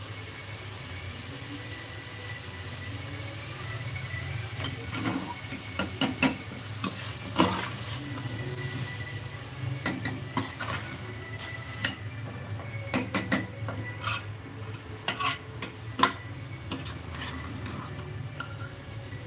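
Steel ladle stirring a thick frying masala in a pressure cooker pot, scraping and knocking against the metal sides in irregular clinks that start a few seconds in, over a faint sizzle and a steady low hum.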